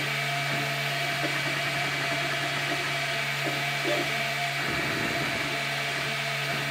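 MakerBot Replicator 2 3D printer running mid-print: its stepper motors whir in short tones that change pitch every fraction of a second as the extruder head moves back and forth, over a steady hum.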